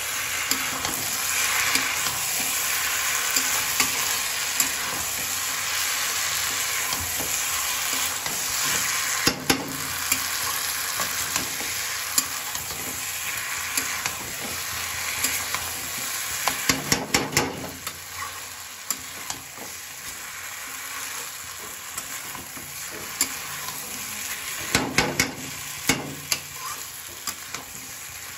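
Cauliflower, peas and masala sizzling in oil in a kadai while a flat metal spatula stirs and scrapes through them. Clusters of sharp clicks come near ten, seventeen and twenty-five seconds in, where the spatula knocks against the pan.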